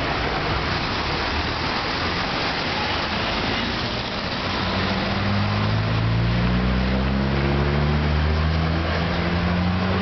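Street traffic noise, with a city bus's engine coming in close about halfway through, its low note slowly rising in pitch as it accelerates.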